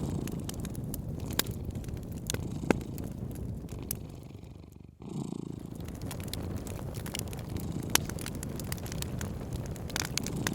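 A cat purring steadily under a crackling wood fire, with scattered sharp pops. About five seconds in, the sound briefly fades away and then comes back.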